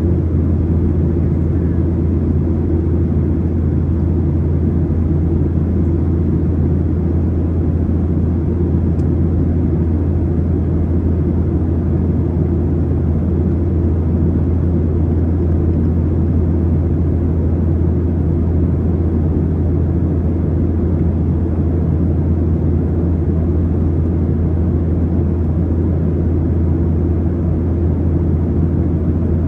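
Steady low drone of an airplane's engines, even and unchanging throughout.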